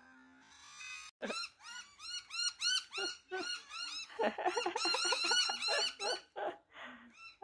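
Cat giving a rapid run of short chirping meows, about four or five a second, each rising and falling in pitch, starting about a second in and thinning out to a few calls near the end.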